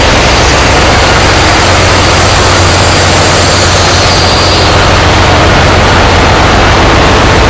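Ship's engine-room machinery running: a loud, steady, dense hiss with a low hum underneath.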